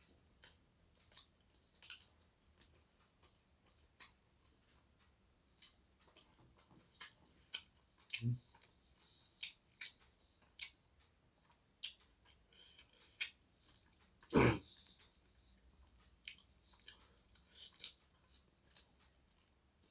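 Chewing and small mouth clicks of someone eating rice and chicken by hand, irregular sharp ticks throughout. A single louder thump comes about fourteen and a half seconds in.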